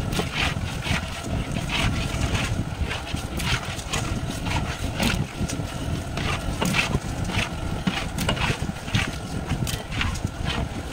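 A ladle scraping and knocking against a large cooking pot as cut potatoes are stirred into the masala, in short irregular strokes over a steady low rumble.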